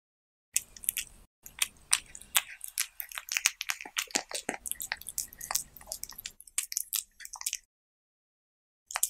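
Cat chewing and biting into a taco of diced cucumber and tomato on a tortilla, close-miked: a quick run of clicks that stops a little after two-thirds of the way through, with one short burst near the end.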